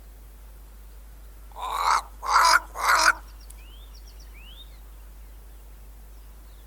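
Crow cawing three times in quick succession, harsh and loud, each caw about half a second long.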